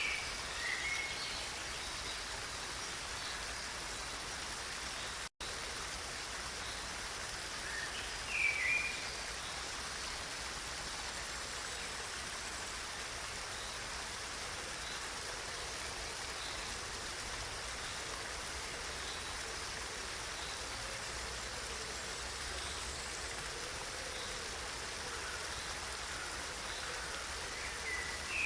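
Steady rush of running water, with a bird giving a short chirp near the start, another about eight seconds in, and one at the very end. The sound cuts out for an instant about five seconds in.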